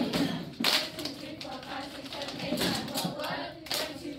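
A group of children clapping their hands, with their voices singing together underneath the claps.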